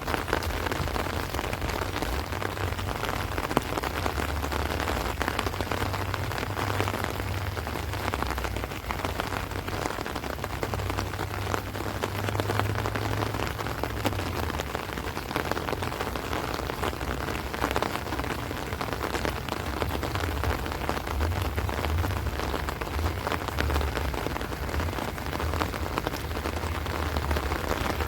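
Heavy rain falling steadily on rice leaves and trees, a dense continuous patter of drops, with a low gusty rumble of wind underneath.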